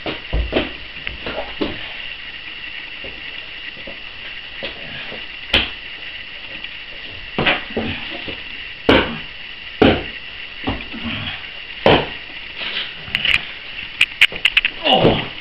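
Scattered thuds and knocks of wrestlers' bodies and gear hitting the floor during a scuffle, a handful of sharp hits one to two seconds apart and a quick run of clicks near the end, over a steady high hum.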